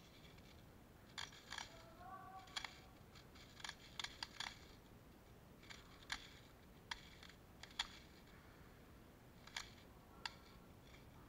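Scattered sharp clicks and snaps, about fifteen at irregular intervals and some in quick pairs, over near silence.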